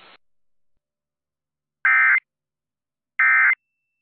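Emergency Alert System end-of-message data bursts: two short, identical, buzzy digital warbles about a second and a half apart, the SAME code signalling that the alert has ended. A faint hiss cuts off just at the start.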